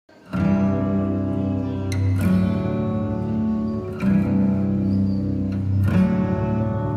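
Intro music: guitar chords strummed and left to ring, a new chord about every two seconds.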